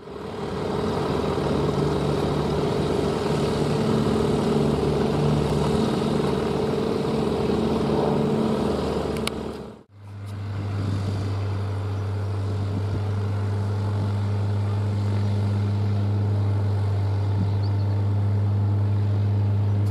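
Steady engine running with a held, even hum, in two stretches that each fade in, split by a cut about halfway. The second stretch has a deeper hum.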